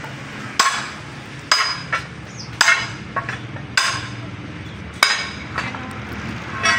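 Hammer blows on metal: about six sharp strikes at uneven spacing, each with a short metallic ring.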